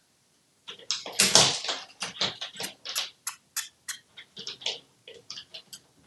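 An irregular run of sharp clicks, taps and scrapes from an African grey parrot moving about on a brass shower-door frame, with a louder scratchy cluster about a second in.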